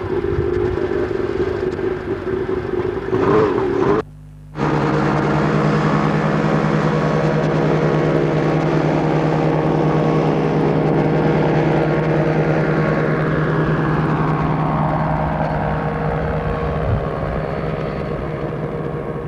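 Engine of a float-equipped microlight trike running steadily at high power as it skims the water and climbs away. The sound cuts out for about half a second about four seconds in.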